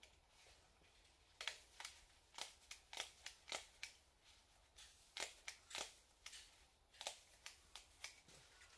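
Faint, irregular sharp clicks and snaps from hands working twine and fittings on the greenhouse's overhead wires, about fifteen of them starting about a second and a half in and dying away near the end.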